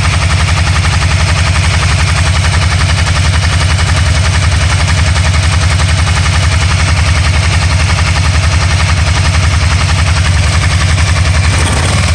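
Can-Am Spyder RT Limited's Rotax 990 V-twin engine running steadily with a rapid, pulsing beat, misfiring.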